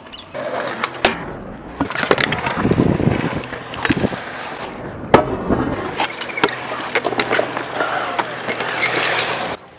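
Small hard wheels rolling over skatepark concrete, with several sharp clacks and knocks from landings and deck impacts. The rolling cuts off abruptly near the end.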